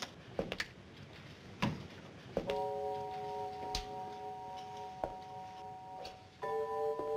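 A few faint clicks of wall light switches being flipped, then soft music enters about two and a half seconds in: a held chord of a few steady tones that moves to a new chord near the end.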